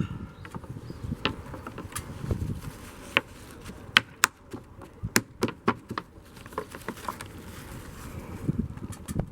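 Irregular sharp taps and clicks of a tight wooden glazing bead being worked into a window frame, thickest in the middle few seconds.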